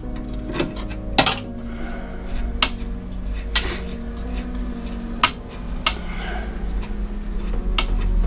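Metal clinks of an open-end spanner against the handbrake lever's mounting bolts and bracket as the bolts are worked loose, about seven sharp clinks at uneven intervals.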